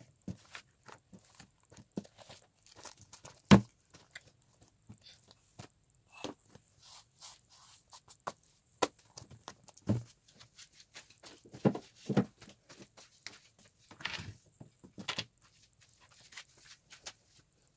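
Books, papers and a pencil case being handled and set down on a desk: irregular knocks, taps and rustles, the loudest knock about three and a half seconds in.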